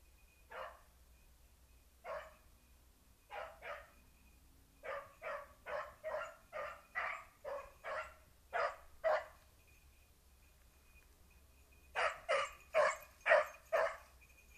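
Young beagle × petit basset griffon vendéen hound giving tongue on a rabbit's trail. A few single barks come first, then a quick run of about ten barks, a short pause, and a final burst of five.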